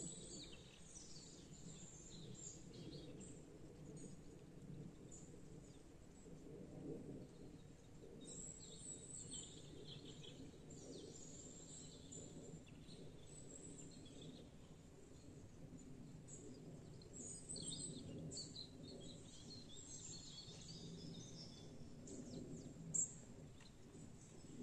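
Faint outdoor ambience: scattered small bird chirps over a low steady background hum, with one short sharp tick near the end.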